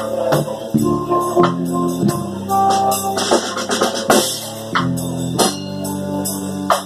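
Live chamber-jazz ensemble of bass, violin, alto saxophone, bassoon and drums playing an instrumental piece: held low notes shifting every second or so over scattered drum hits, with a cymbal wash a few seconds in.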